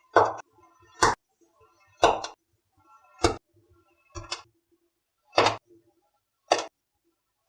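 A series of sharp clacks, about one a second, eight in all, with two close together about four seconds in.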